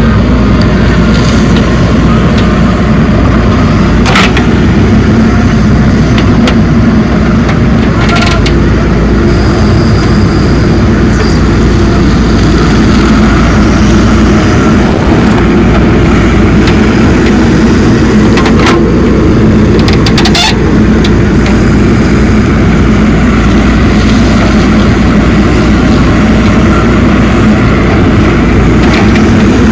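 Heavy diesel machinery working a soil load, an engine running steadily and loudly, with a few sharp metallic knocks scattered through.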